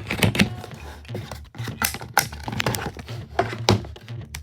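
A LEGO Technic set being unboxed: irregular clicks, crinkles and rattles as the packaging and plastic parts are handled.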